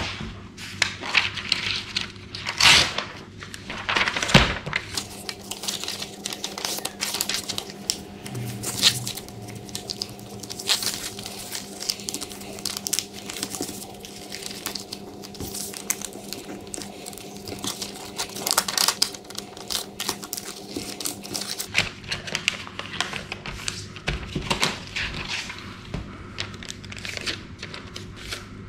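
Lined notebook paper rustling and crinkling as it is folded and creased by hand into a paper plane, in many short, sharp crackles, over a low steady hum.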